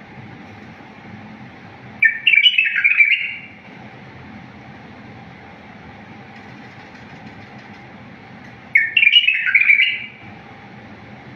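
Bulbul singing two short warbled phrases of quick, clear notes, about six seconds apart.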